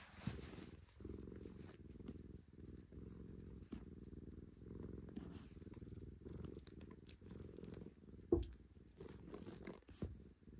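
A white cat purring steadily while its chin is scratched, with a few faint rubbing clicks and a short soft bump about eight seconds in.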